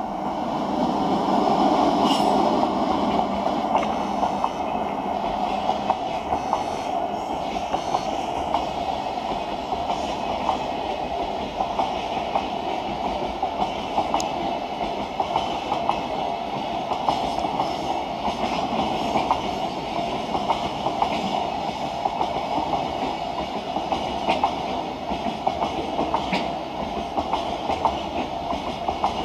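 Freight train hauled by an EF66 electric locomotive passing close by, loudest about two seconds in. The wagons keep rolling past steadily, their wheels clacking over the rail joints.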